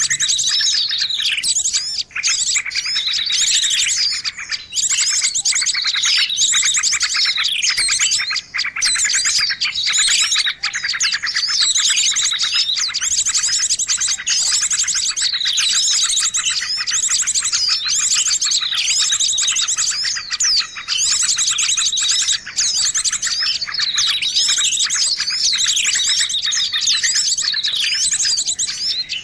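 Bird-luring recording of many small songbirds chattering at once: dense, overlapping chirps, fast trills and down-slurred whistles with hardly a gap, the noisy mixed-flock commotion played to draw small birds in.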